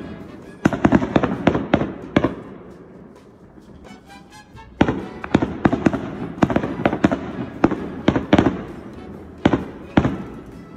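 Aerial firework shells bursting in volleys of sharp bangs. A cluster of bangs comes about a second in, then a pause of about two seconds, then a longer dense run of bangs, and two more near the end.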